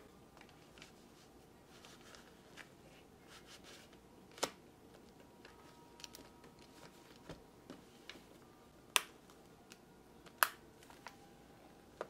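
Handling of an instant camera in a leather case: three sharp clicks, about four and a half, nine and ten and a half seconds in, with lighter ticks and rustles of the case and strap between them.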